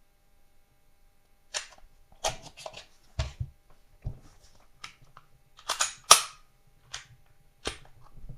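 Sharp metallic clicks and clacks of a handgun being worked by hand, as a polymer-frame 9mm pistol has its trigger pulled and is taken apart to reach the internal parts. The clicks come one by one after a quiet first second or so, the loudest about six seconds in.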